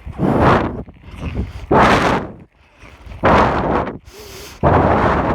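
Heavy breathing blowing straight onto a phone's microphone held in the rider's mouth: four loud breaths, each about a second and a half apart.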